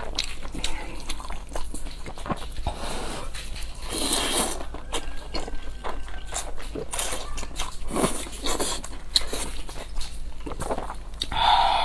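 Close-miked eating sounds: noodles slurped and chewed wetly, with chopsticks clicking against the plate and food. A louder short burst comes near the end.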